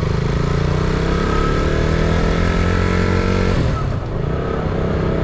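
Motorcycle engine running under way, its pitch climbing slowly, then dropping sharply about three and a half seconds in, with wind rush on the microphone.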